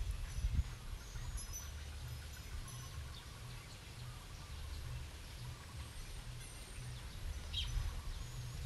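Quiet background ambience: a low steady rumble with a few faint, high bird chirps now and then.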